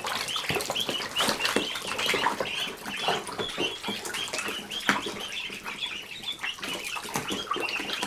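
A crowd of Khaki Campbell ducklings peeping constantly in a fast overlapping chorus of short high calls, with the small splashes of them dabbling and dunking in shallow bath water.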